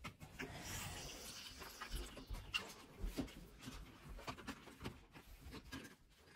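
Plastic toy car wash being worked by hand: a faint hiss of water pushed out of its squeezed tank for the first couple of seconds, then light scattered clicks and knocks of the plastic parts.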